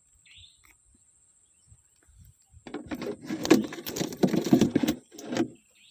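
A short high bird chirp near the start, then about three seconds of dense rattling and clattering from fishing tackle handled close to the microphone, stopping shortly before the end.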